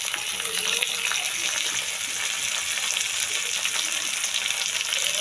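Chopped tomatoes sizzling steadily in hot oil with fried onions in a steel kadhai, with a steel ladle stirring them in the pan.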